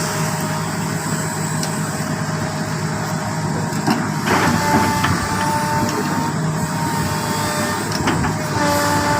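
Excavator working: its diesel engine runs steadily under whining tones that come and go, with a short clatter of knocks about four seconds in.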